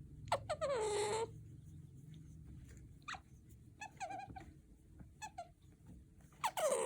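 Pet otter giving a string of high-pitched squeaking calls while being rubbed on the head and neck: a short call, a longer one about a second in, several brief squeaks in the middle and a louder call near the end.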